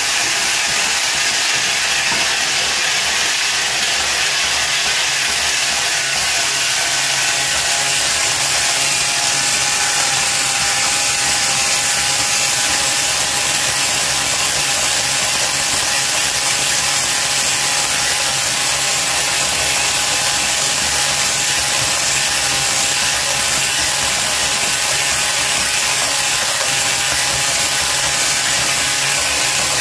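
Hand-held electric mixer running steadily with its whisk in a glass bowl, beating eggs and sugar until they turn pale and foamy.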